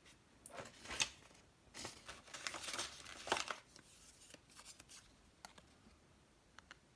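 Faint rustling, scraping and clicking of small objects being searched through by hand. It is busiest in the first few seconds and thins to a few light ticks.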